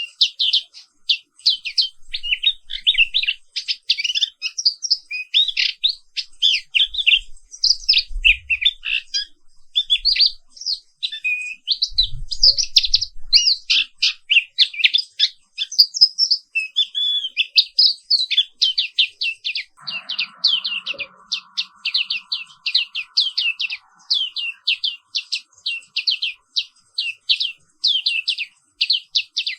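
White-eye (pleci) singing a fast, unbroken run of high chirping notes, with a more varied warbling stretch in the middle. A faint steady hum joins in for a few seconds about two-thirds of the way through.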